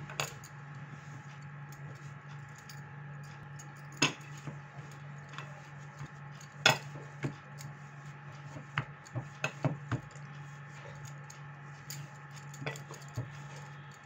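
Multigrain bread dough being kneaded by hand in a glass baking dish, with scattered sharp clinks of bangles striking each other and the glass as the hand works; the loudest clinks come about four and seven seconds in. A steady low hum runs underneath.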